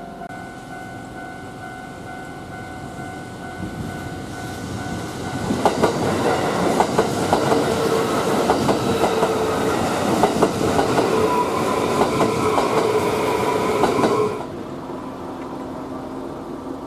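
Electric commuter train passing through a Japanese level crossing while the crossing's warning bell rings. The rush of the train builds, then wheels clack over the rail joints for about eight seconds and cut off sharply as the last car clears.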